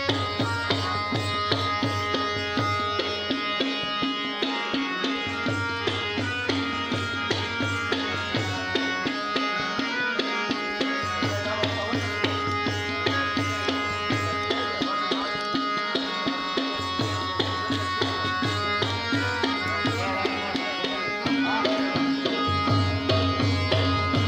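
Harmonium playing a melody of held reedy notes, with a hand drum such as a tabla keeping a steady beat.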